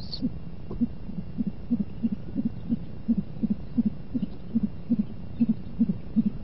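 Great horned owl giving a rapid series of short, soft, low hoots, about three a second. A brief high squeal sounds right at the start.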